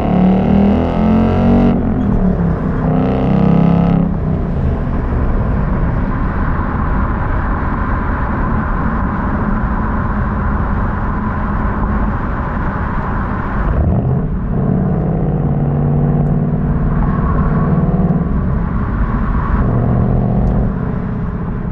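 2023 Mustang GT's 5.0 L V8 exhaust, heard from inside the car, rising in pitch as it accelerates. The rise breaks off twice in the first four seconds, as at gear changes. After that it settles into steady cruising with road noise, with another short break near fourteen seconds.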